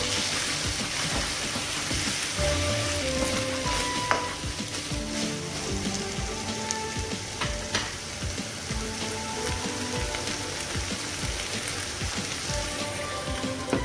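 Chicken pieces frying in oil and onion masala in a nonstick pan, sizzling steadily as a wooden spatula stirs them, with a few sharp knocks of the spatula against the pan.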